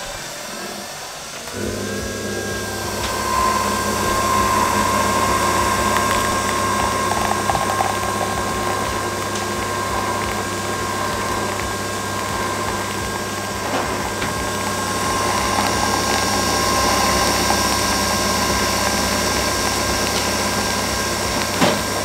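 Nespresso Vertuo Plus capsule machine brewing a cup. The whine rises as the capsule spins up in the first second or so, then a steady whirring whine sits over the pump's constant buzzing hum while the coffee pours.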